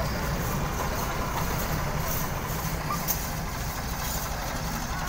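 Ford tractor's diesel engine running steadily with a fast low throb as it pulls a heavily loaded sugarcane trolley, front wheels lifting off the ground under the load. A short knock about three seconds in.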